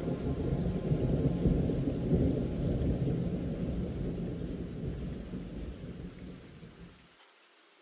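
Thunder rumbling over steady rain. The rumble swells a second or two in and dies away, and its low end cuts off suddenly near the end.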